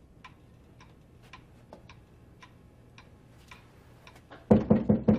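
Pendulum wall clock ticking steadily, about two ticks a second. Near the end a much louder sound breaks in over it.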